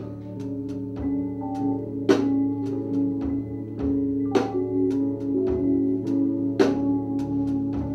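Live improvised jazz trio music: held, layered electric keyboard tones over drums, with three loud strikes a little over two seconds apart and lighter ticks between them.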